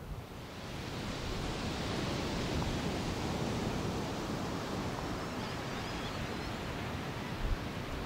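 Steady rushing wash of surf on a sandy beach, mixed with some wind, growing louder about half a second in. A short knock comes near the end.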